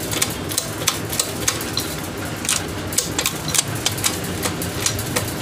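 Irregular metallic clicks and ticks from a Karizma R motorcycle gearbox being turned and shifted by hand in the open crankcase, over a steady low hum.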